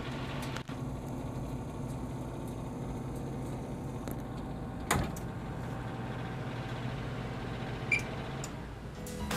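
Convection oven's fan running with a steady hum. A single knock about five seconds in, and a short beep from a control-panel button press near the end.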